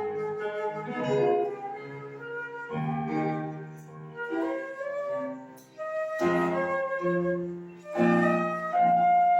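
Flute playing a melody of held notes over a lower accompaniment.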